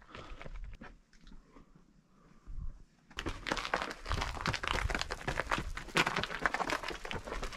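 Running footsteps crunching and scuffing on gritty sandstone. They are quieter for the first few seconds, then a quick, dense run of crunches starts about three seconds in.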